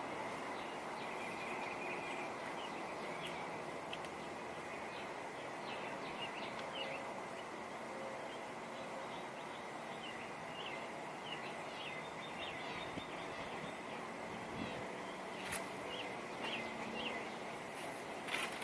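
Outdoor ambience of steady wind noise, with birds chirping repeatedly in short calls throughout.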